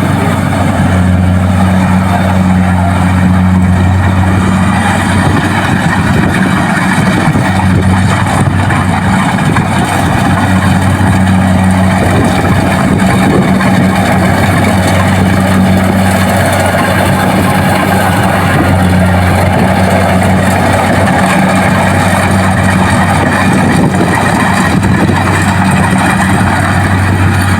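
Kubota DC-70 Plus combine harvester running at a steady speed: a loud, even diesel drone with a constant low hum under a broad mechanical noise.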